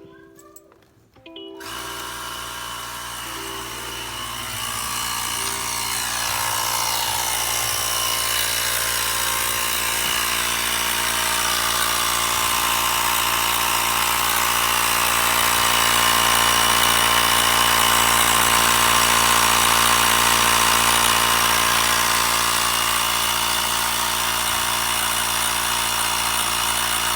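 12V portable air compressor (tyre inflator) switching on about a second and a half in and running steadily, its motor buzz slowly growing louder.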